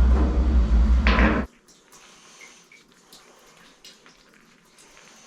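A loud, steady low rumble that cuts off abruptly about a second and a half in. After it come faint clicks and a quiet trickle of liquid, heating oil running through a hose into a tank.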